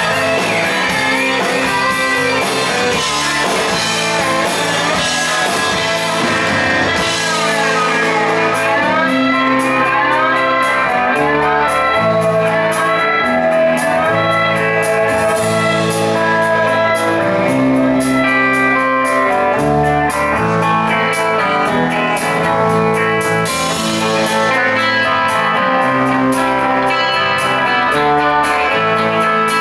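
Guitar-led rock music, steady and without words.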